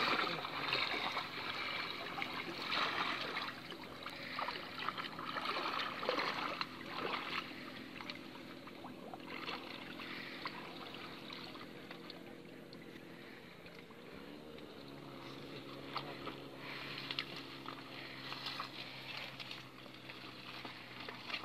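Water splashing and sloshing as people wade through shallow water, louder at first and then settling. Underneath runs a steady low motor hum, which shifts in pitch about fourteen seconds in.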